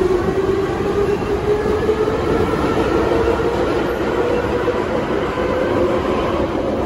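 Ezh-3 metro car heard from inside while it accelerates out of a station: a steady rumble of wheels and running gear under a motor whine that climbs in pitch through the first part and then levels off.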